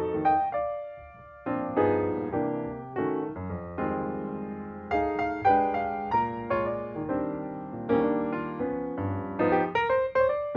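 Piano music: a tune of struck chords and single notes, each fading after it is played, with a brief lull about a second in.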